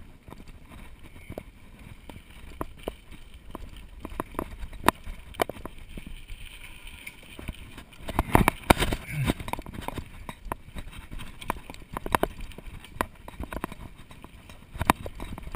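Mountain bike rolling over a bumpy dirt and grass trail: a low rumble of tyres on the ground with irregular knocks and rattles of the bike over bumps, loudest in a cluster about eight seconds in.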